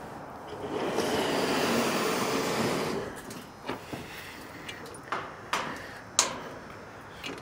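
A steady rushing noise for about two seconds, then a few light metal clanks and rattles from a heavy steel mesh utility-trailer gate on a spring-assist lift as it is raised upright.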